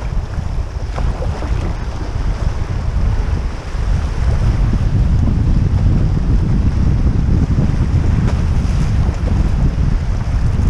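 Wind buffeting the camera's microphone in a heavy, steady low rumble, over the hiss of fast-flowing river water around a canoe. The buffeting grows stronger about four seconds in.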